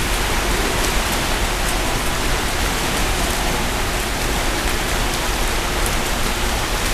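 Steady hiss of splashing water as swimmers churn through an indoor pool.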